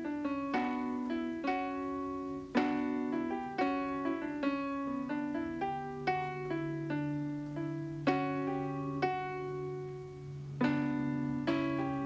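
Background piano music: struck single notes and chords, with a low note held through the middle.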